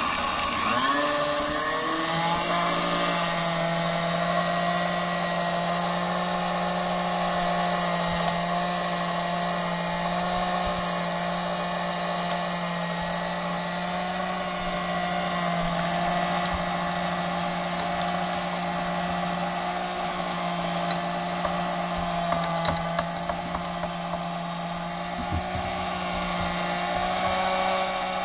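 Sunbeam Mixmaster Model 7 stand mixer's electric motor driving a meat grinder / food chopper attachment through its power transfer unit while it chops carrots: a steady mechanical whine that speeds up over the first two seconds and then holds even. A few light knocks come about three-quarters of the way through.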